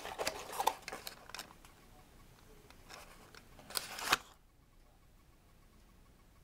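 Handling noise of a boxed die-cast toy car: scattered rustles and clicks, then a louder scraping rustle about four seconds in, after which it goes quiet.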